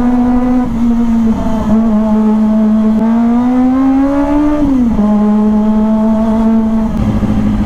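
Kawasaki ZX-25R's 250cc inline-four engine running under way at a steady pitch. It rises slowly about three seconds in, then drops back a little before five seconds and holds steady again.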